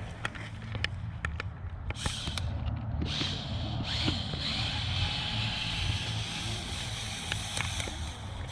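Lego RC crawler's drivetrain: a few sharp clicks, then a steady whirring from about two seconds in, as the motor drives against a damaged drive that the owner suspects is a stripped gear, locked up somewhere in the engagement.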